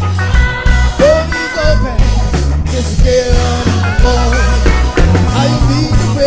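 Live reggae-style band music with a choir, a heavy bass line and held sung notes above it.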